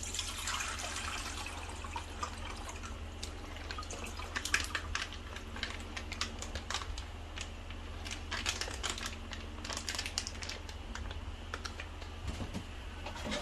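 Golden soup broth poured from its meal-kit packet into a small pot: a liquid pouring rush in the first couple of seconds, then scattered sharp clicks and crinkles of the packet being handled and emptied. A steady low hum runs underneath.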